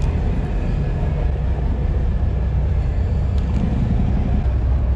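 Wind buffeting the wearable camera's microphone: a steady low rumble, with a few faint clicks from handling about three and a half seconds in.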